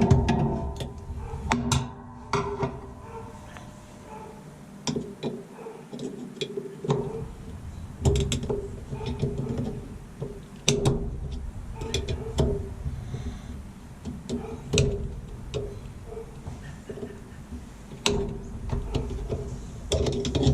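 Irregular metallic clicks and taps as a steel snap ring is worked back into its groove on a Whirlpool washer's transmission clutch assembly.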